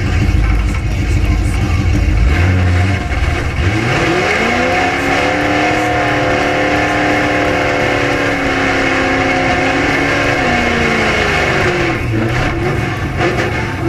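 Drag-racing Ford Pinto's engine heard from inside the caged cabin: a heavy low rumble, then revving up about four seconds in, held at high revs for several seconds, and dropping back near the end.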